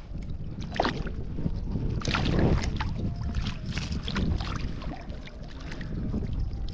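A small hooked fish splashing and thrashing at the water's surface on a lure, in a few short splashes with a heavier splash about two seconds in, over a steady low rumble of wind on the microphone and lapping water.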